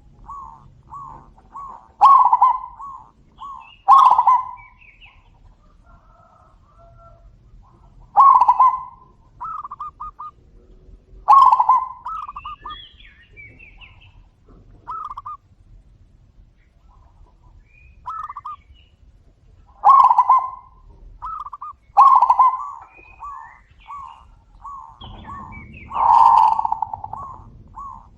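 Zebra doves (perkutut) calling back and forth in repeated trilling coos. Loud phrases come every few seconds, with softer answering coos between them and one longer, louder phrase near the end.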